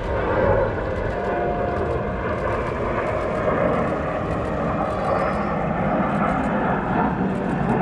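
Jet engine noise from the Blue Impulse team's Kawasaki T-4 trainers flying overhead in formation, a steady loud roar of jet exhaust.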